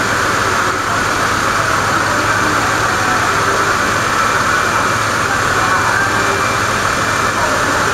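Decorated trucks' diesel engines with manifold-split (mani-wari) exhausts running at idle together, a loud steady rumble with a hissy edge and no revving.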